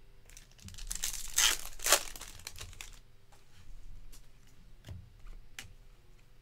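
A trading-card pack's foil wrapper torn open and crinkled, loudest about a second and a half to two seconds in, followed by faint snaps of cards being flipped through by hand.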